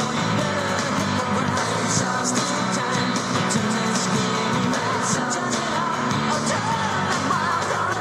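Rock music with a singer over a steady drum beat.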